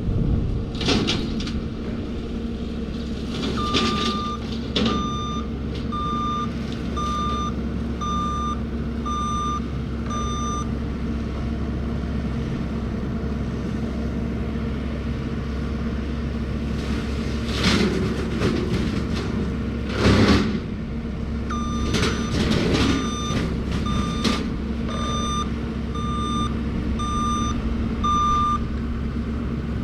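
John Deere 333E skid steer running steadily with its CID 72-inch tree shredder head, with a few short, louder noisy surges about two-thirds of the way through. Over it come two runs of seven high beeps, about one a second: the drone's warning beep.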